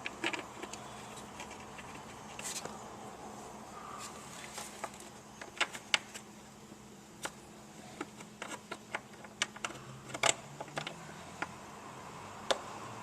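Irregular sharp metal clicks and taps of screws and hand tools being handled while a blower motor is fitted, over a faint steady low hum.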